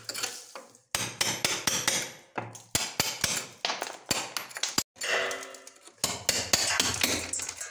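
Club hammer striking a steel chisel to break out a stone window sill: rapid metallic strikes, several a second, coming in bursts with short pauses between them.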